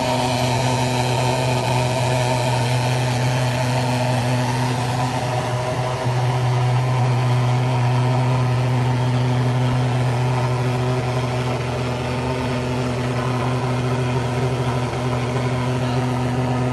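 A loud, steady engine-like drone: a strong low hum with several higher tones above it, running evenly without rising or falling.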